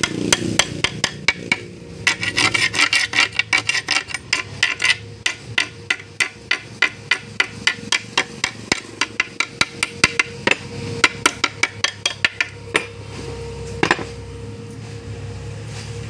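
Small hammer tapping quickly and repeatedly on a fresh weld bead on a steel engine crossmember, chipping off the welding slag. It makes sharp metallic taps, about four a second, that thin out to a few scattered strikes near the end.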